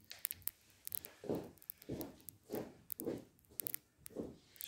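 The broken protective glass of a camera grating and crackling. There are sharp ticks at first, then a run of short scraping strokes about every 0.6 s from about a second in, still with ticks between them.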